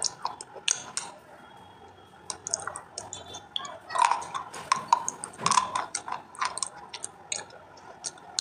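Close-up crunching of thin, brittle pieces of dried white clay being bitten and chewed: a run of sharp, crisp cracks. A quieter gap comes about a second in, and the crunching picks up again after about two seconds, loudest around the middle.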